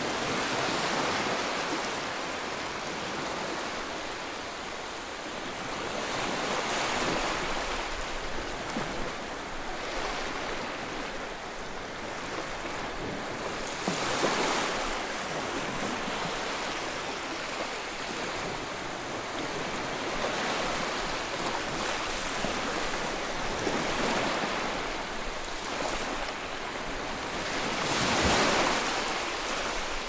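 Ocean surf: a continuous rushing wash of water that swells and ebbs every several seconds as waves break, with the biggest swells near the middle and near the end.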